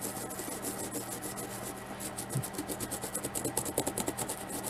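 Toothbrush bristles scrubbing quickly back and forth over a plastic action-figure part, a fast run of short scratchy strokes, rubbing off paint softened by soaking.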